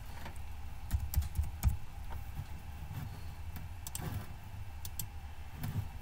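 Scattered clicks of a computer keyboard and mouse, a few keystrokes at a time, over a faint steady low hum.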